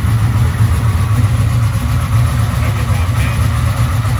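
A Chevrolet LT1 383 stroker V8 idling steadily on an engine test stand through open headers, with no exhaust system, so the raw engine note is heard directly.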